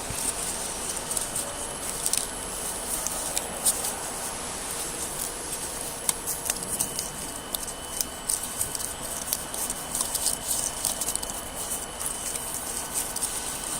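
CNC knife cutting machine cutting corrugated cardboard: a steady high whine under irregular quick ticking and scratching of the blade through the board, with a second steady tone joining about halfway through.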